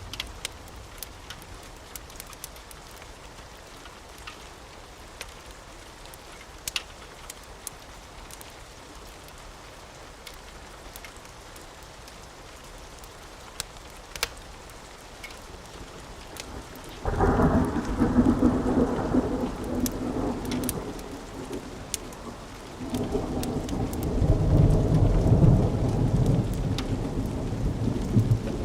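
Steady rain with scattered sharp crackles from a wood fire. About two-thirds of the way in a loud thunderclap breaks into rumbling, and a few seconds later a second long roll of thunder starts and carries on.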